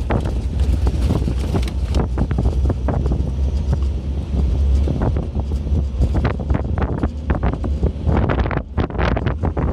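Wind buffeting the microphone of a camera moving along a dirt road: a deep, steady rumble broken by frequent irregular crackles.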